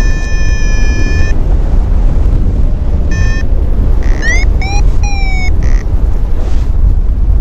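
Heavy wind rumble on the microphone of a paraglider in flight, with a variometer's electronic tones over it: a steady tone that cuts off about a second in, a short burst of beeps, then sliding chirps that rise and fall in pitch as the glider moves between sink and weak lift.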